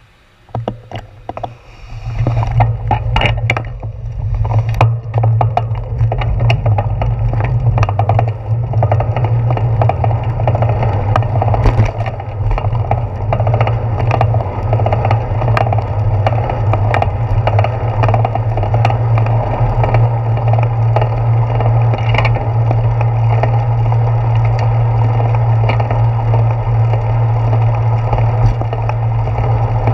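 Bicycle riding noise picked up by a handlebar-mounted GoPro: a steady low rumble of road vibration and wind on the camera. Sharp clicks and rattles come over the first few seconds as the bike pulls away from the stop.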